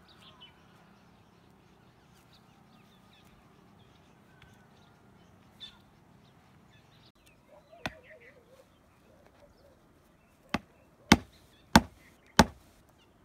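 Hatchet chopping sticks on a wooden block: one knock about eight seconds in, then four sharp, loud chops about two-thirds of a second apart near the end.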